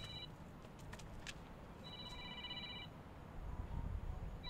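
Electronic ringing like a telephone ringer: a trilling tone made of several high pitches, sounding in rings about a second long and repeating roughly every two and a half seconds. A couple of sharp clicks come about a second in.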